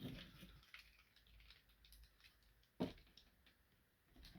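Plastic Transformers figure parts being handled, giving faint small ticks and one sharper click nearly three seconds in.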